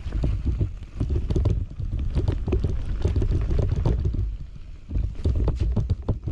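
Hardtail mountain bike riding fast down a dirt trail: wind buffeting the microphone and tyres rumbling over the ground, with frequent sharp rattles and clacks from the bike over bumps.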